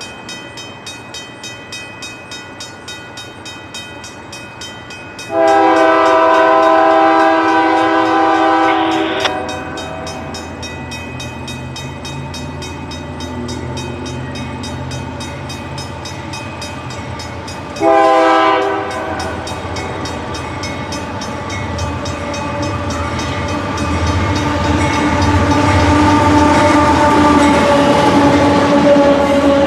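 Union Pacific diesel locomotives sounding a multi-note air horn: one long blast of about four seconds, and later a short blast. The locomotives' engines then grow louder as the train approaches and passes, with the rattle of the cars.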